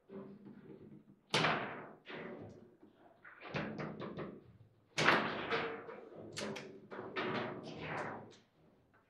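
Foosball table in play: a run of sharp knocks and thuds as the ball is struck by the rod men and hits the table's walls, each ringing briefly in the wooden cabinet. The loudest strikes come about a second and a half in and at about five seconds.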